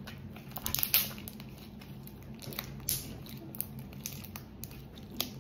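Homemade glue slime being kneaded and squeezed by hand: irregular soft clicks and crackles, a few louder ones about a second, three seconds and five seconds in, over a faint steady hum.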